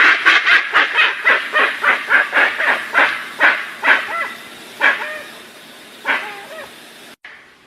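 Dusky-legged guan (jacuguaçu) calling: a rapid series of loud yelping honks, about three a second, that spaces out and fades after about four seconds. The sound breaks off abruptly near the end.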